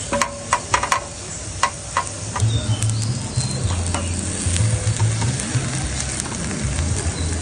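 Garlic bread slices sizzling as they fry in oil in a nonstick pan, with several sharp clicks of tongs against the pan in the first two seconds. A low hum comes and goes from about two and a half seconds in.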